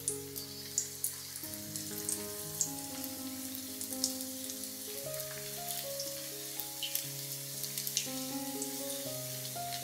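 Paneer-potato balls deep-frying in hot oil: a steady sizzle with many small crackles and pops. Soft background music of held notes plays underneath.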